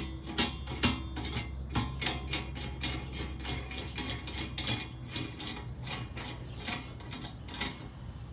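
A bottom bracket cup press tool being unscrewed from a bicycle frame: a steady run of small metallic clicks and ticks, a few a second and unevenly spaced, as the threaded tool is turned loose.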